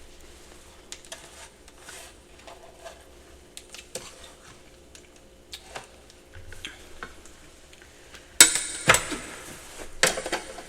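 Ice being crunched close to the microphone: faint clicks and small handling noises, then two loud crunches near the end.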